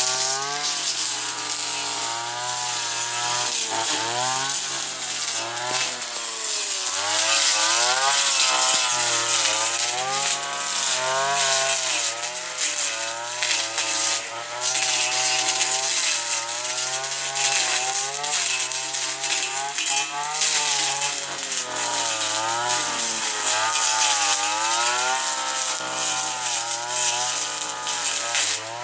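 Husqvarna 226R two-stroke brushcutter running hard while cutting thick tall grass, its engine pitch rising and falling over and over as the cutting head swings through the stems and takes up load.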